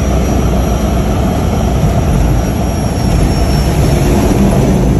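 Floatplane's engine and propeller running with a steady loud drone, heard from inside the cabin as the plane moves across the water on its floats.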